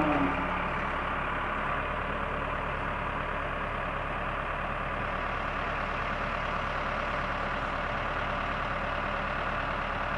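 Backhoe's diesel engine idling steadily.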